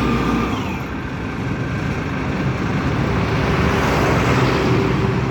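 Pile driving machine's engine running steadily, with no hammer blows.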